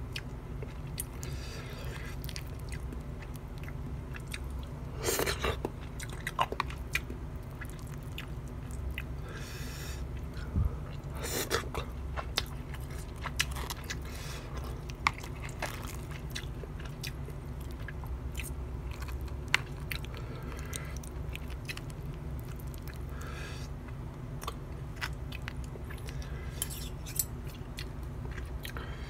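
A person chewing and biting food, the fried seaweed rolls and omelette rice, with scattered sharp clicks and some crunching; two louder crunches come about five and eleven seconds in, over a low steady hum.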